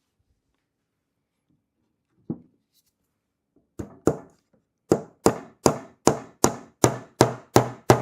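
Hammer tapping a small nail into a wooden beehive frame. A single light tap comes about two seconds in and two more near the middle, then a steady run of strikes at about two and a half a second drives the nail home.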